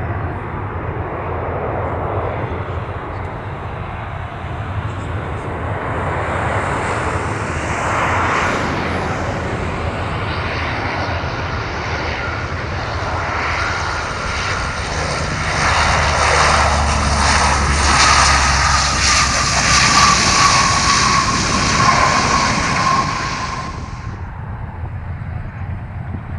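Convair CV-580's Allison turboprop engines on landing, growing louder as the plane comes in and passes close, with a high whine that slides slightly lower as it goes by. The sound cuts off suddenly near the end.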